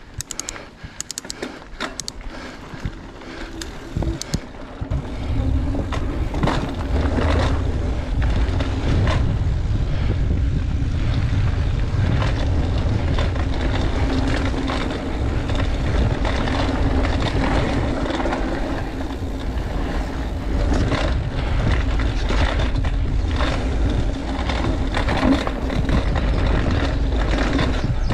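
Mountain bike riding fast down a dirt trail: tyres rolling over the ground and the bike rattling over bumps, with a steady low rumble of wind on the microphone that comes in about five seconds in as the speed picks up.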